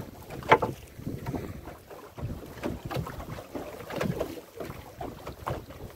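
Wind buffeting the microphone aboard a small fishing boat at sea, with irregular knocks on the boat; one sharp knock about half a second in.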